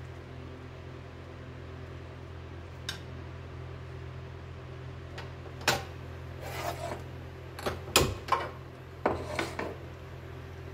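Several short scrapes and knocks of metal kitchen utensils against a pan and the counter, mostly in the second half and loudest about eight seconds in, over a steady low hum.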